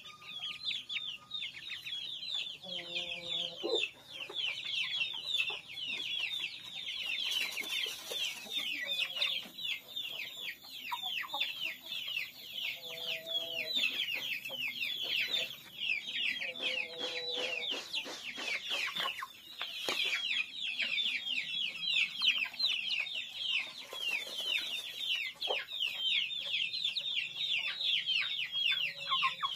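Young kampung chickens peeping steadily, a dense stream of rapid high falling peeps, with a few lower clucks now and then.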